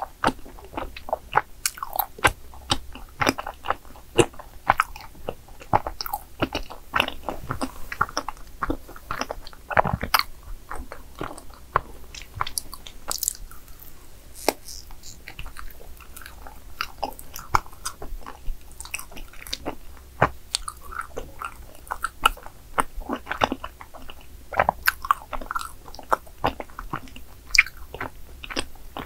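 Close-miked biting and chewing of soft, chewy cream-filled rice cake (cream tteok), with frequent small sticky clicks and wet mouth sounds.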